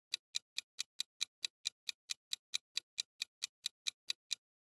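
Clock-ticking sound effect for a quiz countdown timer: crisp, evenly spaced ticks at about four to five a second, stopping shortly before the end.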